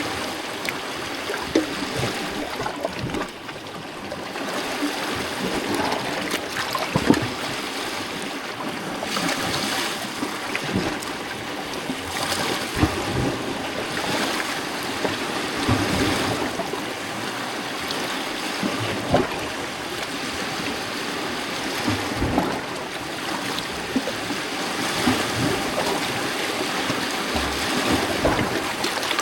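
Small lake waves lapping and splashing against a rocky shoreline: a continuous wash of water broken by frequent small sloshes and splashes.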